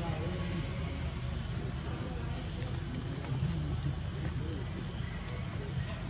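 Steady high-pitched insect chorus, over a low constant background rumble.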